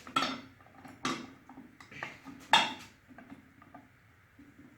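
Metal parts of a Shopsmith's pinion assembly clinking and knocking as they are slid and fitted into place: three sharper clanks, about a quarter second, one second and two and a half seconds in, with small clicks between.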